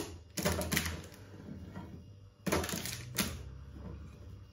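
Pieces of pattypan squash and zucchini clattering as they are picked off a ceramic plate and laid on parchment paper in a baking tray: a handful of short knocks, the loudest about two and a half seconds in.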